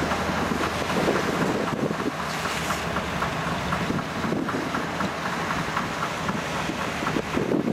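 Fendt 515C tractor running steadily with a Vicon RV2190 round baler and wrapper at work behind it, light regular clicking from the machinery, and wind buffeting the microphone.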